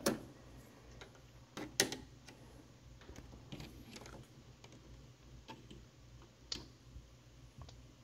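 A handful of faint, irregular clicks and taps of a metal screwdriver against the terminals of the compressor's round run capacitor, the loudest about two seconds in, as the terminals are shorted to discharge the capacitor.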